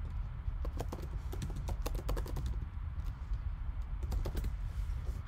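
Typing on a computer keyboard: quick, irregular key clicks in short runs.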